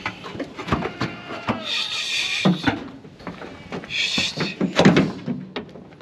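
Steel-wire livestock crate on a pickup bed rattling and clanking as its gate is worked open, a quick run of knocks and thuds with two longer scrapes about two and four seconds in.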